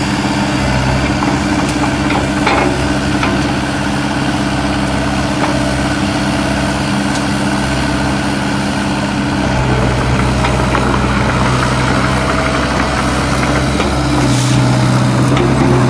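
Kubota U-45 mini excavator's diesel engine running steadily, its note getting deeper and fuller about ten seconds in and again near the end, with a few faint clicks and a brief rush of noise near the end.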